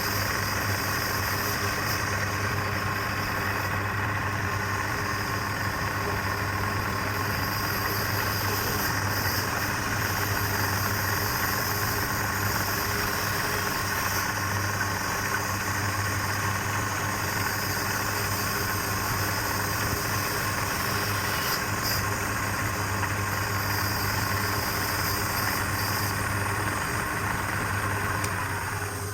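Wood lathe running steadily, its drive giving a constant low hum with a hiss above it. The sound drops off right at the end.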